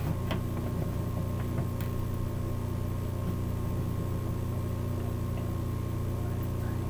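A steady low hum with a faint higher steady tone above it, and a few soft ticks in the first two seconds.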